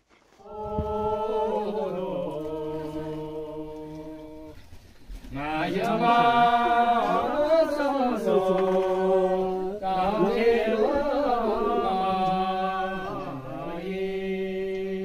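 A man singing alone, unaccompanied, in long drawn-out held notes. There is a short break about five seconds in, then the singing comes back louder, with more rise and fall in pitch.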